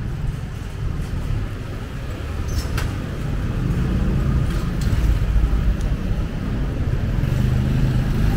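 City street traffic noise, a low rumble that swells in the second half, with a couple of light clicks.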